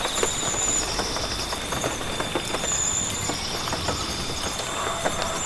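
Rain falling in a rainforest, many drops pattering. Over it run a steady high tone and a high two-part call that repeats about every two and a half seconds.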